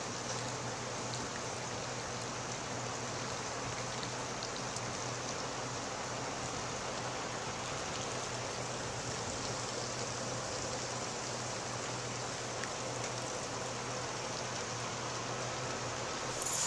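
Steady rushing noise with no events in it, over a faint low steady hum.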